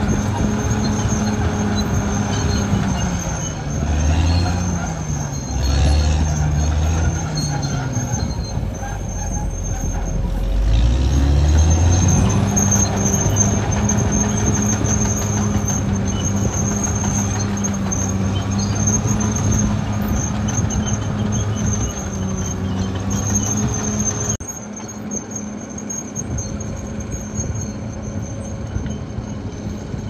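Caterpillar D6R XL bulldozer's diesel engine running under working load, its pitch dipping and recovering several times in the first dozen seconds, then holding steady. A thin high squeal runs over it, and the sound drops abruptly in level about 24 seconds in.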